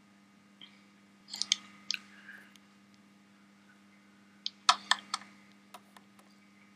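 Light clicks and taps in two short clusters as a search is typed on the touchscreen keyboards of two smartphones, a Sony Xperia Arc and a Nexus S.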